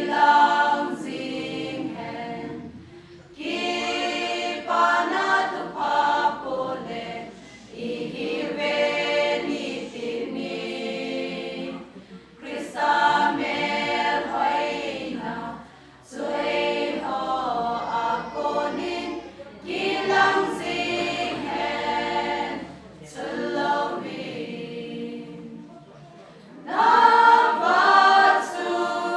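Women's choir singing in unison without accompaniment, in phrases a few seconds long broken by short pauses for breath.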